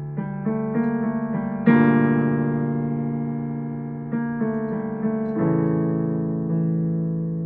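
Solo piano playing slowly: quick runs of single notes lead into two loud chords, about a second and a half in and again about five and a half seconds in, each left to ring and fade.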